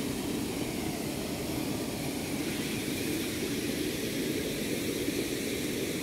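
Steady rush of flowing floodwater, an even noise that does not change.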